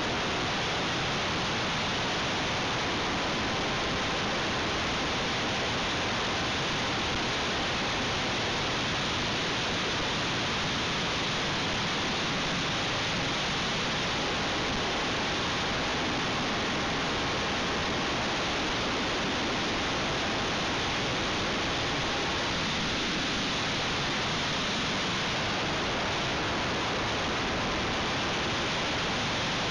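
Steady rushing airflow noise on the microphone of a camcorder mounted on a flying RC aircraft, with a faint steady whine from its motor and propeller underneath.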